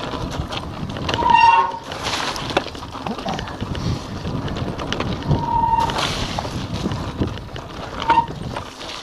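Giant Anthem 2 27.5 cross-country mountain bike rattling and clattering over a wet, rocky singletrack, with wind on the microphone. Disc brakes squeal briefly three times: about a second in, just past the middle, and near the end.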